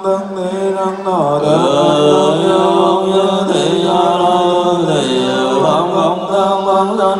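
Vietnamese Buddhist liturgical chant by male monastic voices, drawn out in long held notes that slide down and back up in pitch twice.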